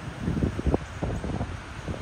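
Wind buffeting the microphone in irregular low rumbling gusts, over a steady outdoor rushing noise.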